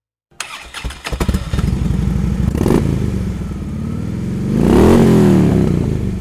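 Motorcycle engine running with an uneven beat at idle, then revved once about four and a half seconds in, its pitch rising and falling back.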